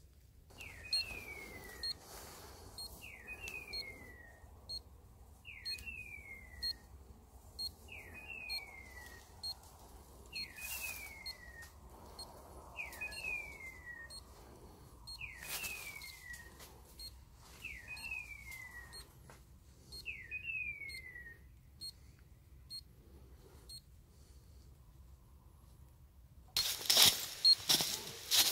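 A dog's beeper collar sounds its point-mode signal: a falling electronic chirp, repeated nine times about every two and a half seconds, which signals that the dog is standing on point. Faint regular high pips run alongside. Near the end, loud rustling and handling noise takes over.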